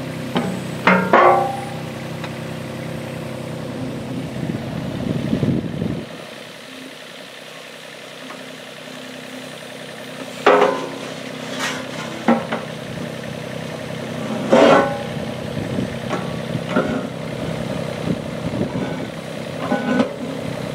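Yuchai YC15-7 mini excavator's diesel engine running while the boom and tilting bucket move, its low rumble dropping away for a few seconds after about six seconds. A few sharp metallic clanks from the bucket and linkage come about a second in, around ten and fifteen seconds, and near the end.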